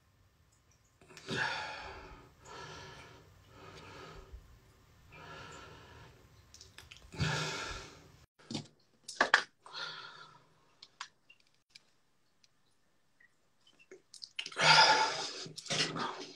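A man breathing and sighing close to a phone microphone, in a series of roughly one-second breaths, with a few sharp clicks in the middle and a louder breath near the end.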